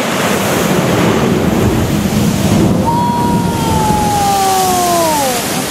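Sea water surging and spraying through a rocky blowhole: a loud, steady wash of surf and spray with wind buffeting the microphone. About halfway through, a person's long exclamation rises over it and slowly falls in pitch.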